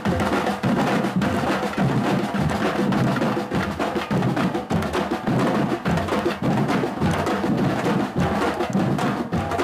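Drum group playing percussion in a dense, steady rhythm of many quick strikes over low drum beats.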